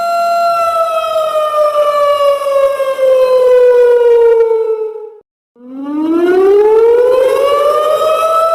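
Simulated siren in a slow wail: a steady tone holds, then slides slowly down in pitch for about five seconds, cuts out briefly, and climbs back up to the same pitch over about three seconds.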